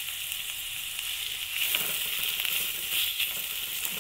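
Sliced onions sizzling in hot coconut oil in a pan. From about one and a half seconds in, a silicone spatula stirs and scrapes them.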